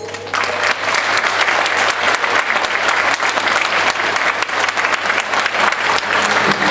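Audience applauding, starting about a third of a second in as the music's last note dies away.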